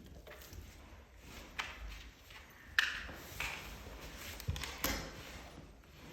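Light, irregular clicks and taps of small metal door hardware being handled and fitted, about five in a few seconds, the sharpest near the middle.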